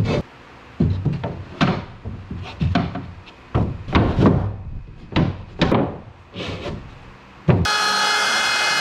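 Plywood and timber pieces being slid, rubbed and knocked against the wooden frames of a boat hull, in irregular strokes. A little before the end a handheld wood router abruptly takes over, running steadily with a whine as it cuts plywood.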